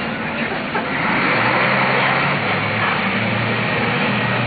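Bus engine running under load, heard from inside the bus with road noise, its steady note getting louder about a second in.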